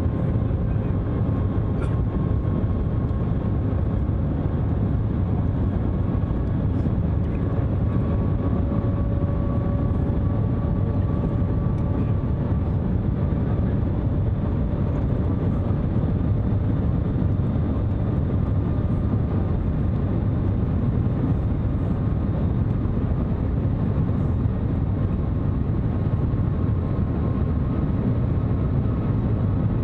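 Steady cabin noise of the Shanghai maglev train running at speed: an even low rush and rumble with no wheel-on-rail clatter. A faint whine rides over it and drifts slightly up in pitch in the first half.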